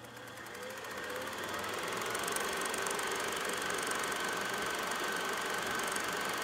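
Film projector running with a fast, even mechanical clatter, fading in and growing louder over the first two seconds, with a faint steady high tone underneath.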